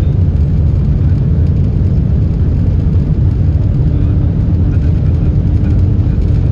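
Cabin noise inside an L0 series superconducting maglev car running at about 460–480 km/h and still gaining speed: a steady, loud low rumble. A faint steady hum joins in about four seconds in.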